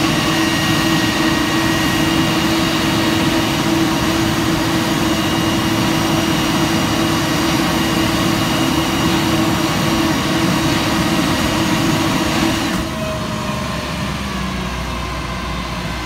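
Concrete mixer truck's diesel engine and turning drum running steadily and loudly, with a strong steady hum over the engine noise. About thirteen seconds in, the hum cuts out and the sound drops to a quieter, lower rumble.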